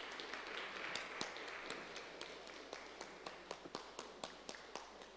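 Audience applause: a dense patter of clapping in the first couple of seconds that thins out into scattered single claps.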